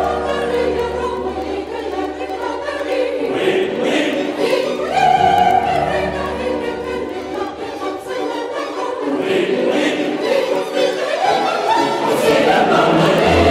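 Choral music on the soundtrack: a choir singing long held notes.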